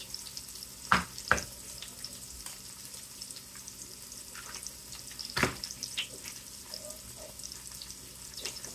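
Eggs frying in oil in an electric skillet: a steady sizzle with a few sharp clicks, two close together about a second in and another about five and a half seconds in.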